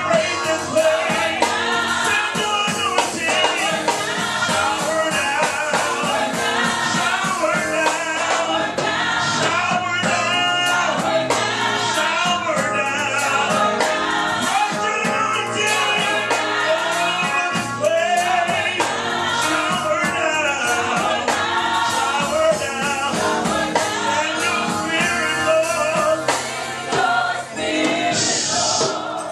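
Gospel worship song: a group of singers with a backing band, sung throughout.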